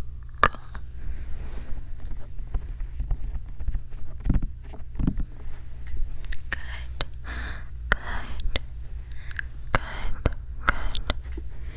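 Close-miked ASMR trigger sounds on a binaural microphone: scattered soft clicks and small taps, with a steady low rumble underneath.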